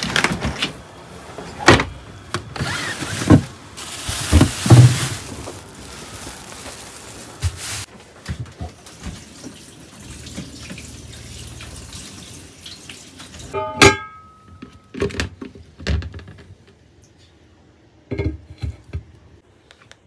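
Water running from a caravan's kitchen tap into a small sink, with knocks and clatter of things being handled, for about the first eight seconds. After that it is quieter, with scattered clicks and one sharp clink about two-thirds of the way through that rings briefly.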